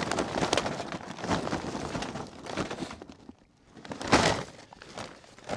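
Charcoal briquettes pouring out of a ripped paper bag and clattering into a metal pan for about three seconds. A single sharp crunch about four seconds in.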